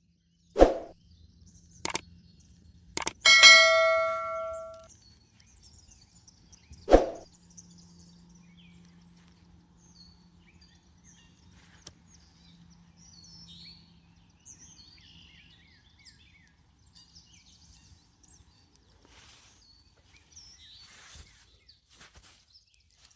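A few sharp knocks, then a metallic clang that rings out for about a second and a half, and a single thump a few seconds later. After that, faint bird chirps.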